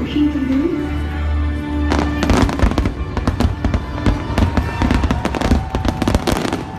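Fireworks display: a dense barrage of rapid bangs and crackles starts about two seconds in and runs on for several seconds, over show music with sustained tones and deep bass.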